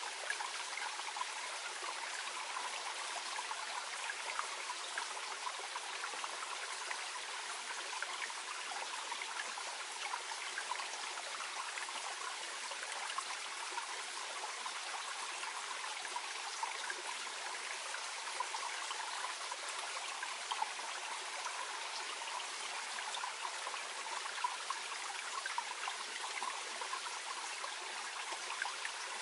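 A small mountain stream flowing gently over stones: a steady babbling trickle with many small splashes.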